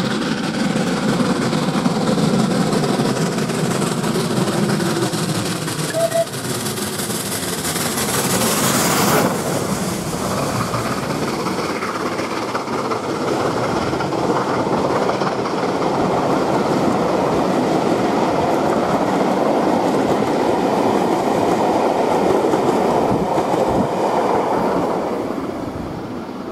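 Merchant Navy class three-cylinder Pacific No. 35028 Clan Line working hard at speed up a 1 in 66 climb. Its exhaust beats and hiss build as it approaches and pass beneath about nine seconds in. The train's coaches then clatter and rumble over the track, fading near the end.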